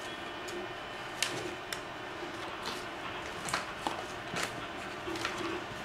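Light scattered clicks and rustles of hands handling paper and cardboard packaging, the bulb's box and its warranty card, over a steady faint hiss.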